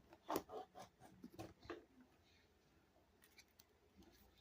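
A few light metallic clicks and snips from hand snips working the copper windings out of a small electric motor, spaced through the first two seconds, then near silence.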